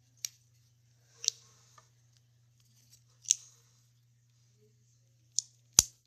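Infinity cube being folded over and over in the hands, its blocks snapping together in sharp clicks every second or two, the loudest near the end.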